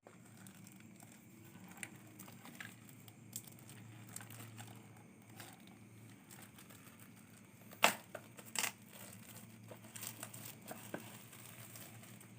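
Scattered crinkling and rustling with irregular sharp clicks, the loudest two close together about eight seconds in, over a faint low steady hum.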